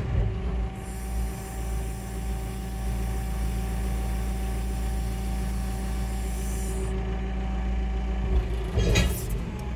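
JCB telehandler's diesel engine running at a steady speed, heard from inside the cab. A high hiss comes in about a second in and stops about seven seconds in, and a brief clatter sounds near the end.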